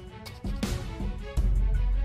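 Background music with a heavy bass and a steady beat.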